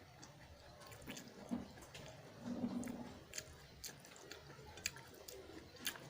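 A person chewing a mouthful of spicy instant noodles close to the microphone: soft, wet mouth clicks and smacks scattered throughout, with a short low hum about two and a half seconds in.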